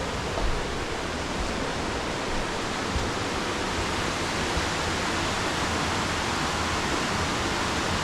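Large waterfall roaring steadily, an even, unbroken rush of falling water.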